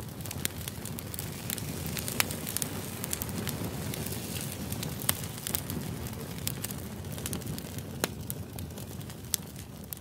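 Split-log wood fire burning in a round metal fire pit: sharp crackles and pops every second or so, with a few louder snaps, over a steady low rush of flame.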